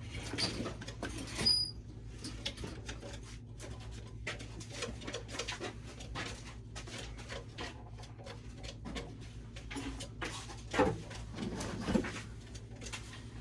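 Scattered clicks and knocks of things being handled, over a steady low hum. The sharpest knocks come about a second and a half in and twice near the end.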